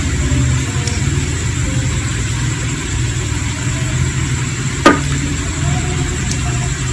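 Steady low motor-like hum with a rapid pulsing, and a single sharp tap about five seconds in as bamboo skewers knock against the pot.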